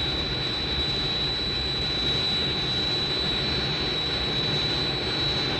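Jet airliner in flight: a steady rushing engine noise with a thin high whine held over it.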